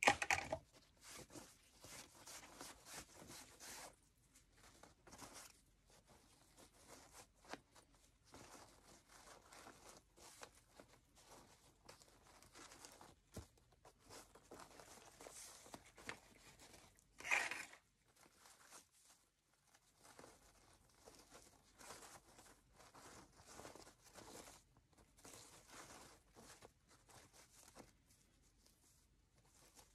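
Wired ribbon rustling and crinkling faintly as it is folded into loops, pinched and twisted by hand into a bow, with one louder rustle a little past halfway.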